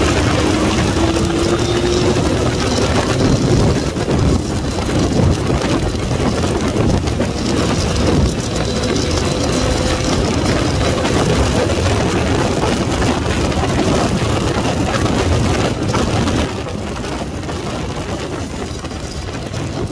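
Wind rushing over the camera microphone at road speed, mixed with the Yamaha MT-09 motorcycle's three-cylinder engine. The engine climbs in pitch under acceleration in the first few seconds. The overall level drops a little past the three-quarter mark.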